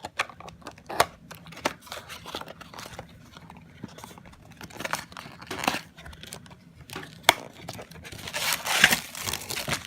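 A cardboard trading-card box being torn open by hand, with sharp clicks and snaps of the flaps. A longer stretch of tearing and rustling comes near the end.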